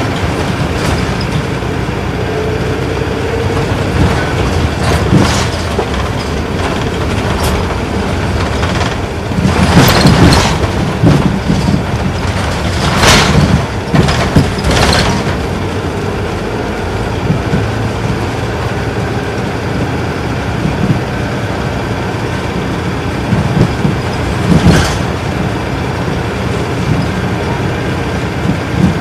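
Isuzu Erga Mio bus's inline-six diesel engine and road noise, heard from inside the cabin as the bus drives along at steady speed. A few short, loud rattles or jolts break through, about ten, thirteen, fifteen and twenty-five seconds in.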